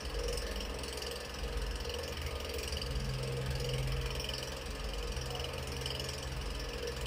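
A steady low hum with faint hiss and no distinct events in it.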